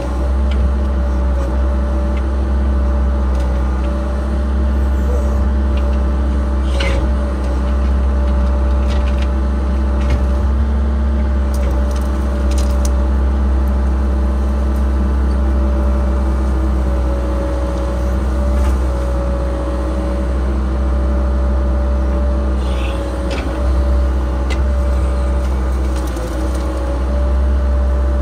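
Cat 306 excavator's diesel engine running steadily under working load, heard from inside the cab, with a steady whine over the low engine hum as the boom and bucket dig through brush. A few short sharp clicks and cracks come through.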